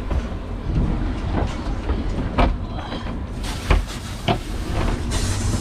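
Steady low rumble on a fishing boat with several sharp knocks and thumps on deck, and a hiss of noise coming in about three and a half seconds in.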